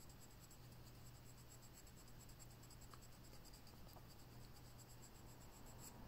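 Faint scratching of a black Faber-Castell coloured pencil shading on paper, over a steady low hum.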